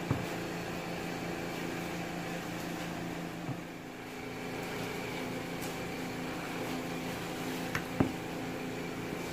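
Steady hum of a running motor or appliance, with several low held tones under a light hiss. A few short knocks break through, one near the start and the loudest about eight seconds in.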